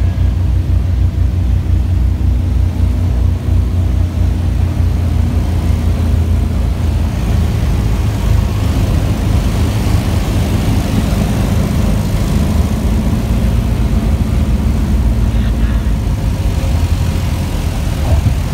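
A small propeller plane's engine and propeller droning steadily, heard from inside the cabin during the landing, with a pulsing low beat. About six to seven seconds in the sound turns into a broader, noisier rumble as the plane comes down onto the runway and rolls out.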